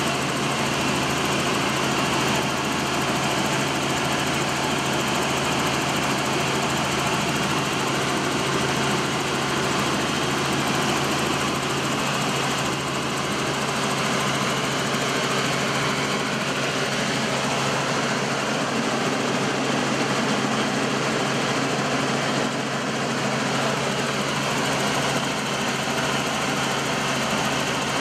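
Helicopter engine and rotor running steadily in cruise flight: a constant drone with a steady low hum underneath.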